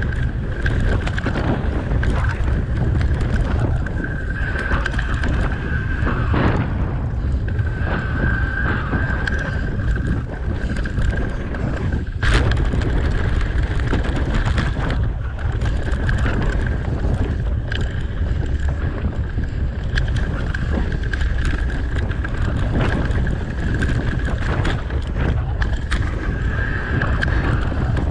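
Bike riding over a dirt forest trail: wind buffeting the camera microphone over the rumble of the tyres on the ground, with a high whine that comes and goes and scattered knocks and rattles as the bike goes over bumps, the sharpest about twelve seconds in.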